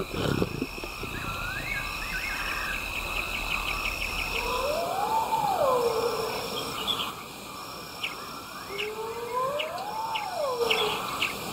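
Night-time bush ambience of insects: a steady high trill and short chirps repeating about once a second. Two long calls, each rising then falling in pitch over about two seconds, come about five seconds apart.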